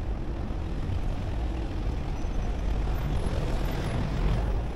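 Steady low rumble of road traffic on a city street.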